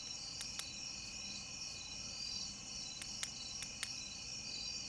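Night chorus of crickets and other insects: a steady high trilling with a pulsing note. A few pairs of sharp clicks cut through it, one pair about half a second in and two more around three to four seconds in.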